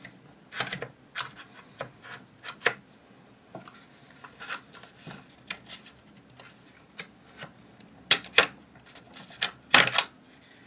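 Irregular clicks and clacks of rifle parts being handled as a Type 97 part is pushed forward and down to work it off the receiver, with the loudest knocks about eight and ten seconds in.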